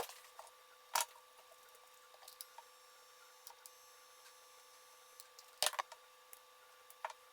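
Small clicks and taps of soldering tools on a circuit board as a resistor leg is soldered in: one right at the start, one about a second in, a quick cluster past the middle and one near the end. A faint steady whine sits underneath.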